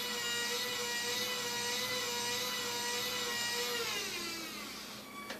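Remote-control model crane's boom hoist motor and gearing whining steadily as the boom is lowered, then dropping in pitch and winding down about four seconds in as the function stops.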